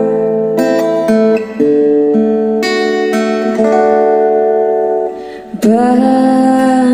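Instrumental guitar break of a pop song: acoustic guitar picked note by note, then a strummed chord about two thirds of the way in that rings on. It is played loud through a sound system's loudspeakers.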